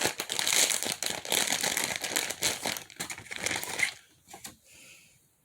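Squishy toy's packaging crinkling and rustling in the hands as it is opened, with many quick crackles, dying away about four seconds in.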